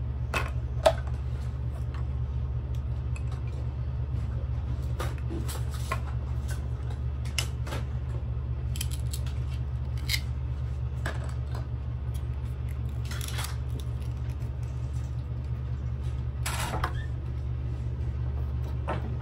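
Scattered light clicks and clinks of toy kitchen dishes and utensils being handled, the sharpest one about a second in, over a steady low hum.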